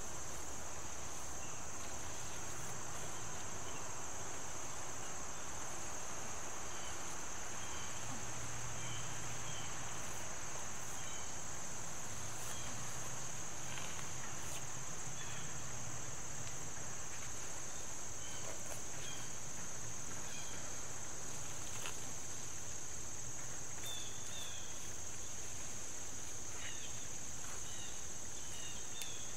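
Steady high-pitched chorus of insects trilling without a break, with short chirps scattered through and more of them near the end.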